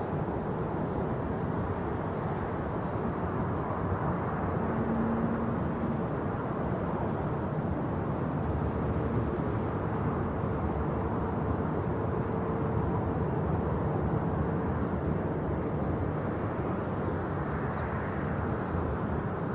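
Steady jet airliner engine noise, with a faint steady tone holding for several seconds in the middle.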